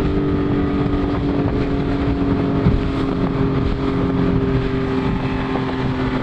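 Outboard motor of a small speedboat running at speed, a steady drone that eases slightly lower in pitch, over the rush of water along the hull.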